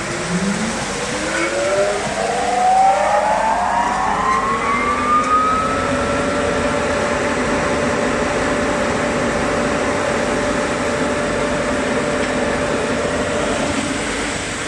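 Vacuum (dust-extraction) fan of a plywood sanding line starting up: its whine rises in pitch over about six seconds as the motor spins up, then holds steady at full speed.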